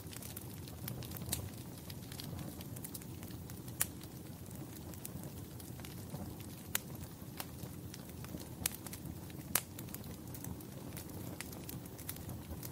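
Fire crackling in a fireplace: a steady low rumble of flames with scattered sharp pops and snaps, a few louder pops standing out.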